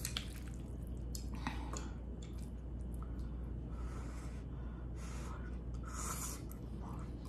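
Soft, wet slurping and chewing of glass noodles, in several short bursts, over a low steady hum.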